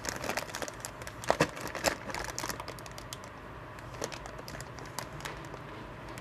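Clear plastic parts bag crinkling as hands turn over bagged black plastic kit parts, with many light clicks and rustles. They are busiest in the first two and a half seconds, then sparser.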